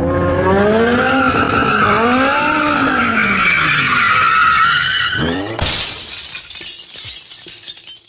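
Car sound effect: an engine revving up and down while tyres squeal. About five and a half seconds in, a sudden loud rushing noise sets in and fades away near the end.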